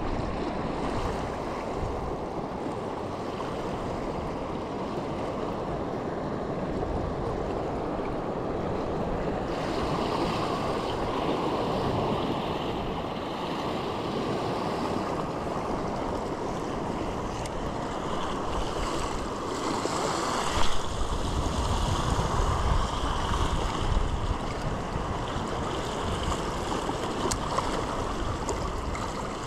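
Sea waves washing and surging against a rock shelf, with wind buffeting the microphone. One sharp, louder knock about two-thirds of the way through.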